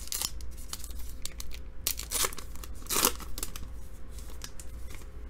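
A trading-card pack wrapper being torn open and crinkled by hand, a few short rips and rustles with small crackles between them.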